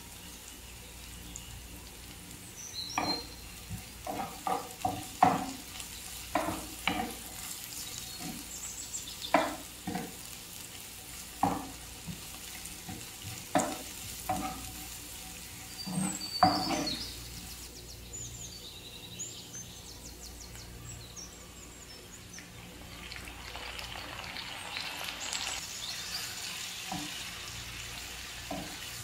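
Sliced onion and garlic sizzling in oil in a frying pan, with a wooden spatula knocking and scraping against the pan in a run of stirring strokes. Near the end, after the beef liver strips are in, the frying becomes a denser, steadier sizzle.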